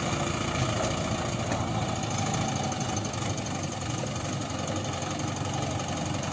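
Diesel engine of an ACE mobile crane idling steadily.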